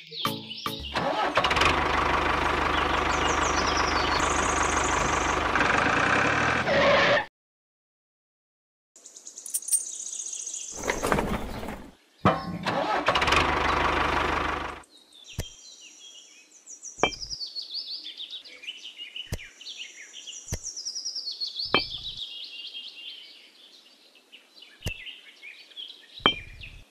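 A small electric motor running loudly for about seven seconds, then cutting off abruptly. Later, birds chirping high and repeatedly, with a few sharp clicks of miniature bricks being set down.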